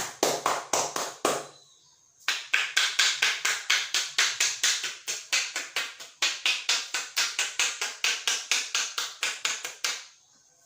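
Rapid, evenly spaced hand strikes of a percussive head massage, about five a second, with a short break about a second and a half in before a long run that stops near the end.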